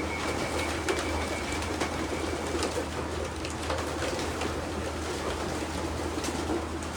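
A large flock of racing pigeons cooing together in their loft, with scattered sharp clicks and taps among them. A steady low hum runs underneath, and a thin high steady tone stops about two and a half seconds in.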